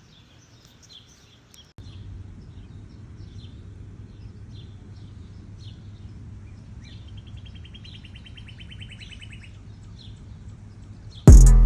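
Small birds chirping, with one fast, even trill for about two seconds in the middle, over a steady low rumble that comes in about two seconds in. Loud music with a drum beat cuts in just before the end.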